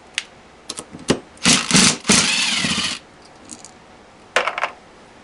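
Handheld power tool run in two short bursts on a bolt of the transmission case, the second burst longer, with its motor pitch wavering. Metal clicks and clatter of sockets and tools before and after.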